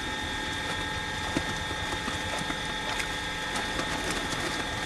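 A motorboat engine runs steadily across the water, a constant drone with a fixed whine, mixed with scattered light clicks and splashes.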